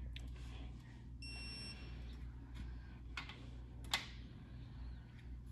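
Electronic torque wrench giving a single high beep of about half a second, a little over a second in, as a cylinder-head bolt on a small-block Ford reaches its set torque. Two sharp clicks from the wrench and socket follow a couple of seconds later.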